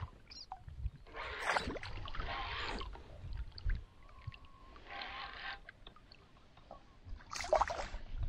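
Reeling a fish in from a kayak: a conventional fishing reel cranked in short spells, with water sloshing against the hull.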